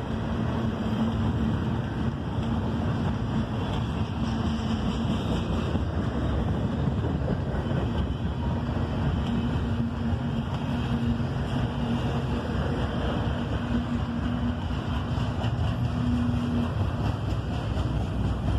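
Double-stack intermodal well cars rolling past: a steady rumble of steel wheels on rail, with a faint low hum that comes and goes. Wind buffets the microphone.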